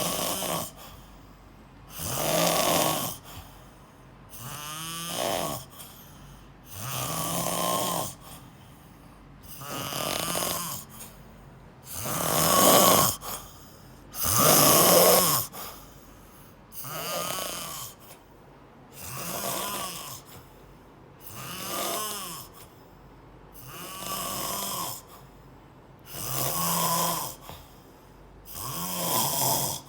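A sleeper snoring steadily, one rasping snore about every two and a half seconds, the ones around the middle a little louder.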